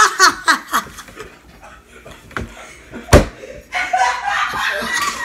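A child's loud fake laugh tails off, then a single sharp slap of a hand on the tabletop about three seconds in. Laughing picks up again near the end.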